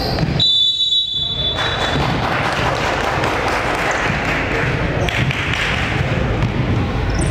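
A referee's whistle blows one blast of over a second, starting about half a second in. It is followed by the busy noise of a basketball game in a large hall, with a ball thudding on the court.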